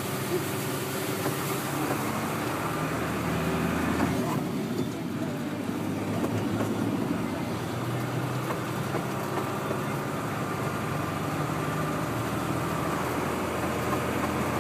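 Truck cab interior: the engine runs steadily under the hiss of tyres on a wet, partly flooded road.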